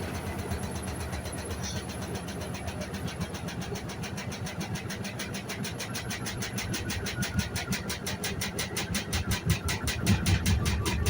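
Hoover Sudslock washing machine running, its motor and drum making a fast, even pulsing that grows louder towards the end.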